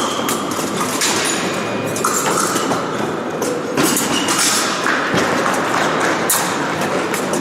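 Épée fencing bout: scattered taps, knocks and brief metallic rings from blade contacts and fencers' footwork, over a steady noisy sports-hall background.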